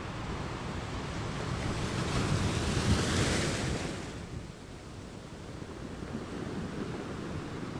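Sea waves washing onto the beach, one surge swelling to a peak about three seconds in and dying away, with wind rumbling on the microphone.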